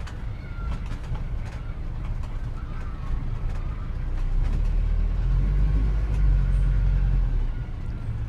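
Street ambience from an added film soundtrack: a low vehicle engine rumble that swells in the middle, with a few faint bird chirps.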